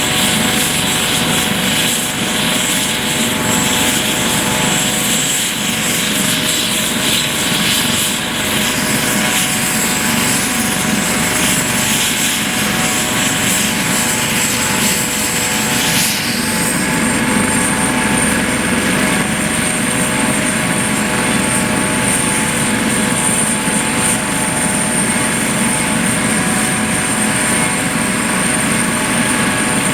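Aerospatiale AS 365 Dauphin twin-turbine helicopter running steadily, rotor noise with a high turbine whine. The whine steps up slightly in pitch about halfway through.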